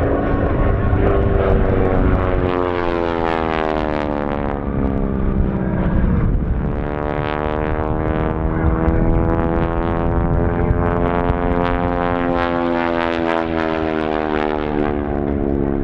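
A Harvard trainer's Pratt & Whitney R-1340 radial engine and propeller in aerobatic flight, running loud, its propeller tips near supersonic speed. Its pitch sweeps down and back up several times as the aircraft manoeuvres.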